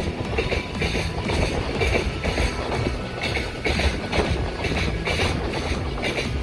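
Freight train rolling past, its wagons' wheels clattering over the rail joints in a regular rhythm about twice a second over a steady low rumble.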